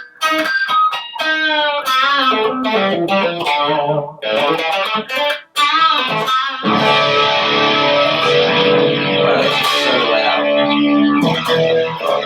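Electric guitar played through a Yamaha GEP50 digital effects processor set to doubling and detune, making a big, thick sound. Single-note lines with bends and short gaps give way about halfway through to a held chord that rings on.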